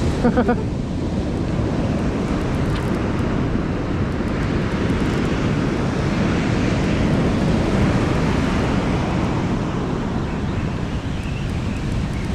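Wind buffeting the microphone over the steady wash of surf breaking and running up the beach.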